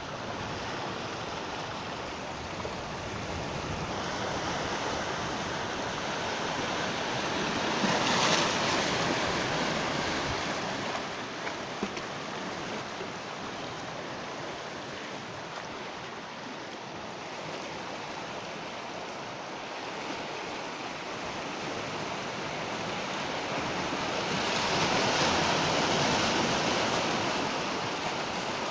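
Sea waves breaking on a shore under a steady wash of surf, with two larger waves surging up louder, one about 8 seconds in and one near the end.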